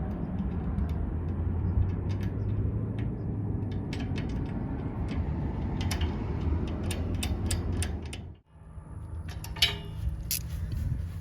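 Engine running at a steady idle, with sharp metallic clicks and clanks over it; the sound cuts out abruptly about eight seconds in and picks up again.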